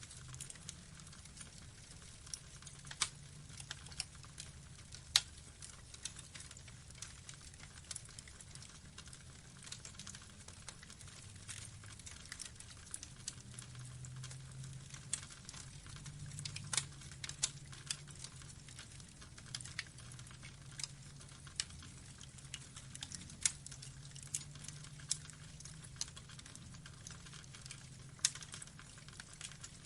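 Wood log fire burning, crackling and popping at irregular intervals over a low, steady rumble of flames, with a few louder pops standing out.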